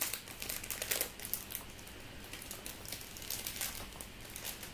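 Foil wrapper of a Topps Chrome trading card pack crinkling as it is torn open by hand, with the crackling thickest in the first second.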